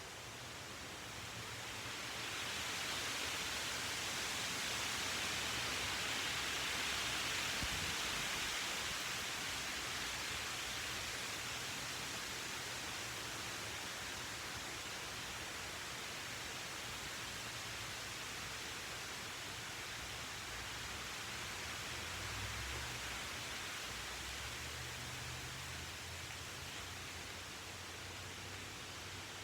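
A steady hiss with no distinct events in it, growing louder about two seconds in and easing back off after about ten seconds.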